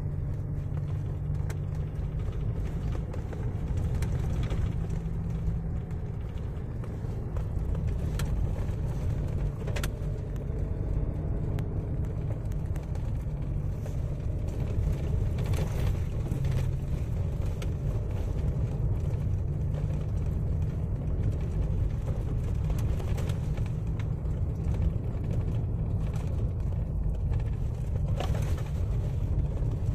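Steady low rumble of a car driving over a rough unpaved dirt road, heard from inside the cabin, with a few light knocks now and then.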